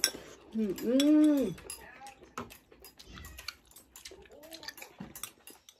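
A person's drawn-out, closed-mouth 'mmm' of enjoyment while eating, rising and then falling in pitch about a second in, with a shorter, fainter one near the end. Light clicks of chopsticks and spoons against bowls are heard throughout.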